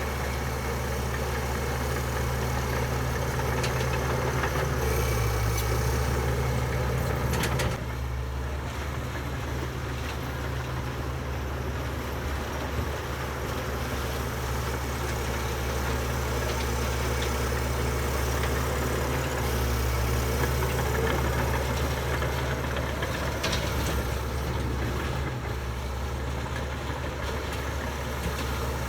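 Heavy diesel engine of earthmoving machinery running steadily with a deep hum. The level drops about eight seconds in and swells again later as the load changes.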